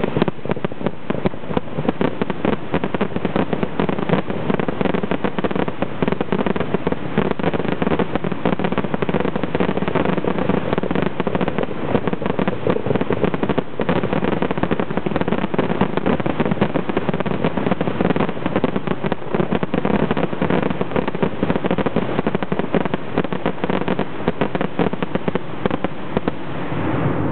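Fireworks finale: aerial shell bursts and crackle fired in a rapid, continuous barrage, the reports running together, dying away near the end.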